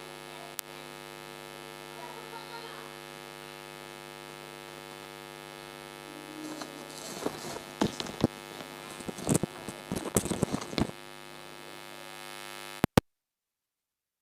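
Steady electrical mains hum with many overtones, broken by a few short clicks and knocks in the second half. It cuts off suddenly with a click near the end, leaving dead silence.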